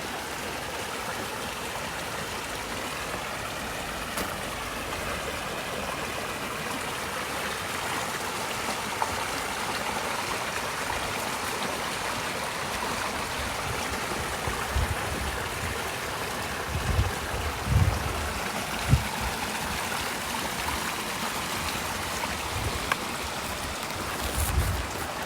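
Brook water running steadily, with a few low thumps over it in the second half.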